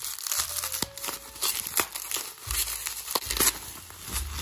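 Bubble wrap crinkling as hands pull it open and peel it off a small cardboard box, with several sharp crackles.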